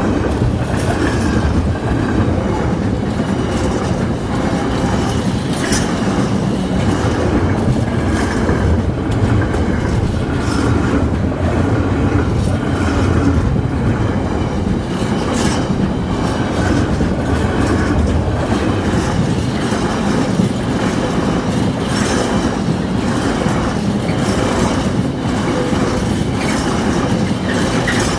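Freight train passing at speed: a steady, loud rumble of wagons with irregular clicking of wheels over the rails throughout. The train is headed by what looks like a Class 66 diesel locomotive.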